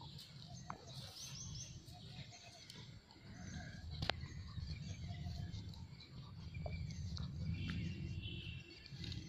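Birds chirping now and then over a low steady rumble, with one sharp click about four seconds in.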